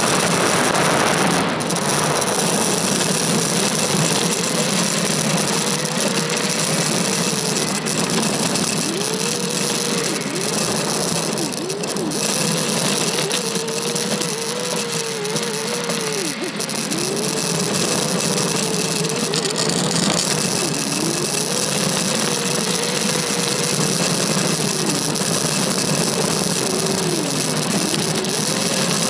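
Subaru Forester driving a rough dirt trail, heard from a roof-mounted camera: steady road and wind noise, with the engine note rising and falling again and again as the throttle is worked.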